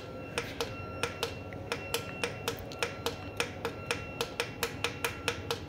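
Rapid, evenly spaced clicking, about four to five a second, from the Deltec inverter's front-panel control as its cycle button steps the charge-current setting through its values.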